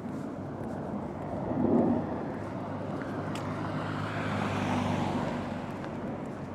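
A car passing on the street, its engine hum and tyre hiss swelling through the middle and fading again, over moderate wind buffeting the microphones.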